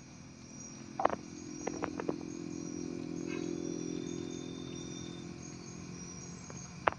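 A few short clicks and taps as a giant freshwater prawn is worked off a fishing hook by hand, over a steady low motor hum that swells and then fades away near the end.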